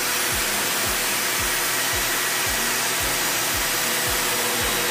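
Circular saw running steadily as it cuts through a sheet of plywood.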